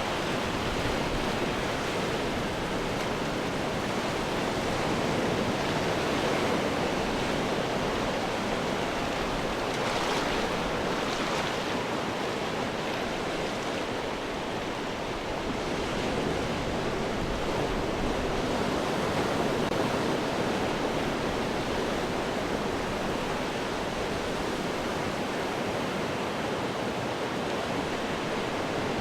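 Ocean surf breaking against rocks: a continuous wash of water noise that swells and ebbs gently, with a brighter splash of spray about ten seconds in.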